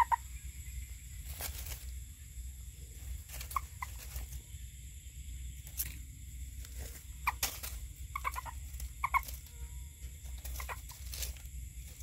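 Frog calls: short croaks, single or in quick groups of two or three, every second or two, over a steady high-pitched background with occasional faint clicks.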